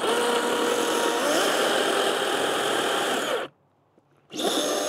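DeWalt 60V brushless battery chainsaw running at full speed, cutting a notch into a madrone log, with a steady high whine. It stops suddenly about three and a half seconds in and then runs again briefly near the end.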